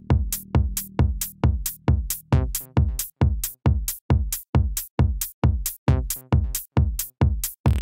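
Electronic tech house track with a steady drum-machine kick beat, a little over two beats a second. A low sustained tone under the beat fades out about three seconds in, leaving the kick almost bare.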